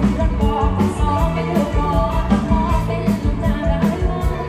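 Live band music with a steady drum beat and heavy bass, and a woman singing over it.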